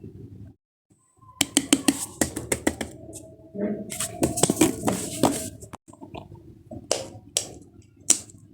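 Plastic fidget toys being handled, with a quick run of sharp clicks and pops and then a few single snaps near the end.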